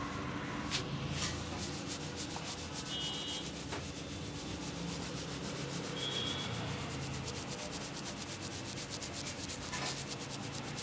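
Hands massaging a head, fingers rubbing and scratching briskly through the hair over the scalp. Quick scratchy strokes come in a fast, even rhythm of several a second.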